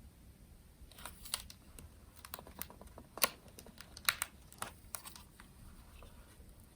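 A run of irregular light clicks and taps, about a dozen over four seconds, some much sharper than others.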